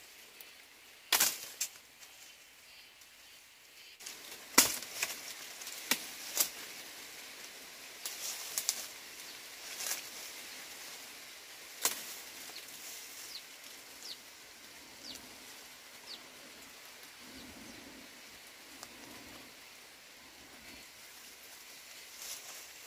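Dry reed and grass stems snapping and rustling as someone pushes through a thicket. There is a run of sharp cracks, the loudest about a second in and again near five seconds, then a fainter rustle.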